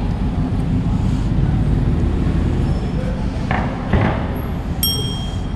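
Steady wind and road rumble from riding a bicycle with a camera, with traffic along the road. Two brief noisy swells come in the middle, and near the end a click is followed by a short metallic ringing tone.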